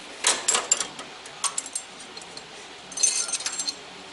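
Small metal valve-train parts, valve retainers among them, clinking and rattling against each other as they are handled: a cluster of sharp clinks just after the start, a single click near one and a half seconds, and another cluster about three seconds in.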